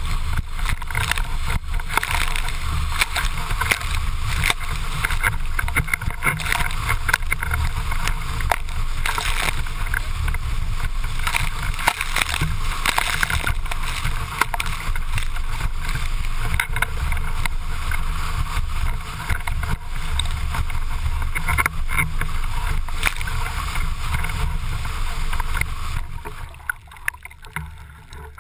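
Windsurf board planing at speed: water rushing and spray slapping against the board and rig, with wind buffeting the rig-mounted camera's microphone. About two seconds before the end the sound drops suddenly and goes muffled as the sail goes down into the water.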